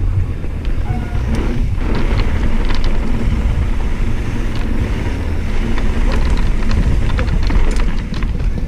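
Wind buffeting the microphone and tyre rumble from a Rurok Cordillera mountain bike rolling along a concrete and dirt path, with scattered clicks.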